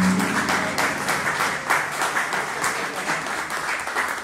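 Audience applauding steadily, dense rapid clapping. A last held accordion note dies away during the first second.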